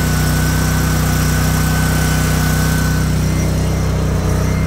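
Kohler Command Pro 25 hp V-twin engine on a Cub Cadet commercial zero-turn mower, running at a steady speed. A thin high whine alongside it stops about three seconds in.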